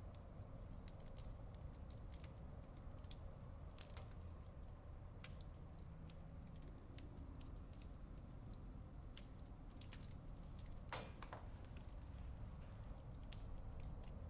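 Small wood fire of hardwood and fire-log pieces crackling inside a Cubic Mini Grizzly wood stove: faint, irregular snaps and pops over a low rumble, with one longer, louder crackle about eleven seconds in.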